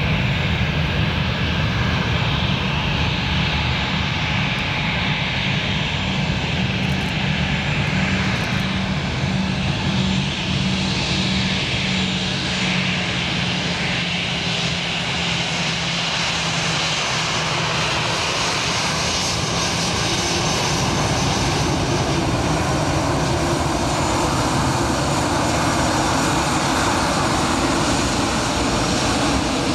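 An Airbus A319-111's two CFM56-5B turbofan engines running at taxi idle as the airliner taxis past: a steady jet hum with faint steady whistling tones. It grows a little louder in the last third as the aircraft comes side-on and close.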